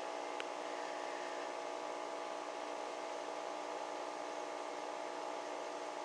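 Steady electrical hum of aquarium equipment, several steady tones over a faint hiss, with a faint click about half a second in.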